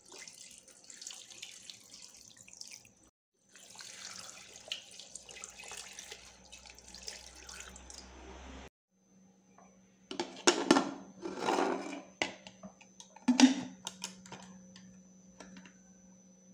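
Water poured into an aluminium pressure cooker, splashing over a cloth-wrapped jar, in two stretches. After a short pause come loud metal clanks and knocks as the lid is fitted onto the cooker, the sharpest one near the end.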